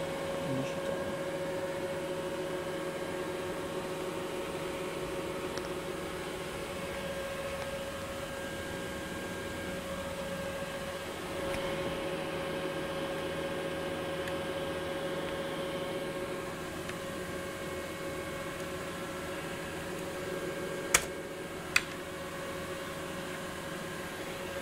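Steady hum and whirr of electronic bench equipment's cooling fans, with a held mid-pitched tone. Two sharp clicks near the end.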